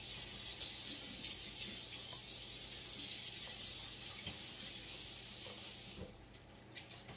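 Kitchen sink tap running as a rag is rinsed under it, a steady rush of water that is shut off about six seconds in.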